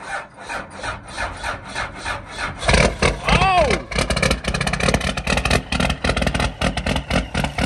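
Straight-piped 12-valve Cummins 5.9 L inline-six diesel in a school bus, catching and running rough right after a cold start, its open exhaust rattling in rapid uneven pulses. About three seconds in it gets louder as it fires up fully and blows out thick smoke, with a brief rising-and-falling whoop over it.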